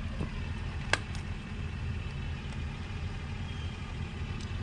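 Small metal clicks from hand work at an outboard lower unit's vent screw: one sharp click about a second in, a fainter one just after, and a few faint ticks later, over a steady low rumble.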